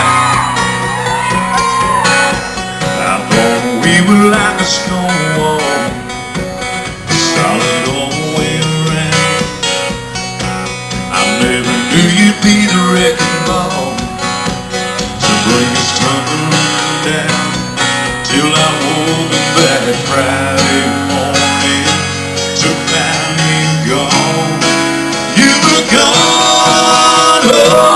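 Live acoustic country music: several acoustic guitars strummed and picked, with a man singing lead into a microphone.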